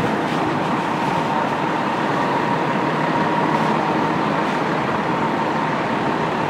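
Fire engine's diesel running steadily close by: a constant noisy drone with a thin steady whine held through it.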